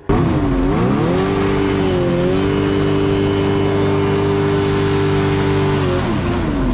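Hovercraft's 100 hp two-stroke engine running hard under throttle. Its pitch dips and climbs again in the first second or so, holds steady at high revs, then falls away near the end.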